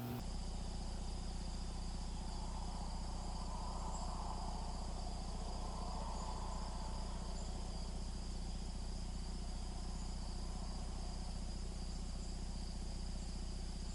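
Crickets chirping in a steady chorus over a low, steady rumble.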